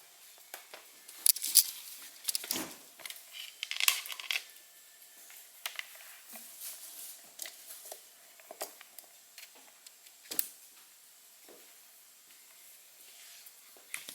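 Handling noises of a laptop and its charger cable being set up and plugged in: scattered clicks, taps and rustling, busiest in the first few seconds, with a sharp click about ten seconds in.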